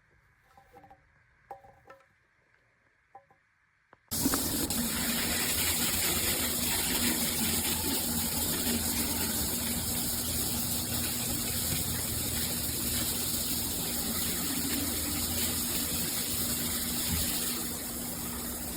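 Near silence with a few faint clicks, then about four seconds in a steady rush of water starts suddenly: a rainfall shower head spraying water.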